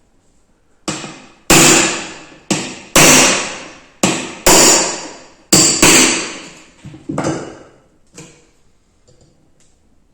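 About ten hammer blows struck through a block of wood, driving out the pin that holds the trigger mechanism of a Flecha Model 14 air rifle. The blows come at an uneven pace, mostly in pairs, and each one rings briefly and fades.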